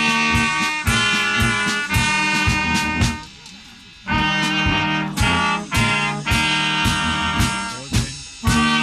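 Miners' brass band playing a tune, with a steady beat struck about twice a second. The music drops away for nearly a second about three seconds in, then comes back in full.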